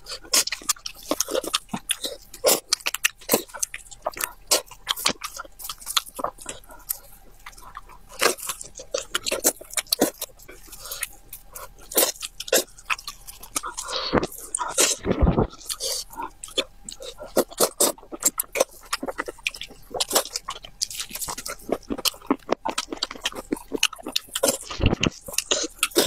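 Close-miked eating sounds from a braised pig's head: wet tearing of the meat by gloved hands and chewing, with many short sharp smacks and clicks.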